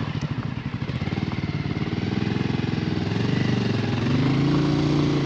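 Motorcycle engine running under way, a rapid pulsing note. About two seconds in the engine note climbs as the bike speeds up, then it holds steady near the end.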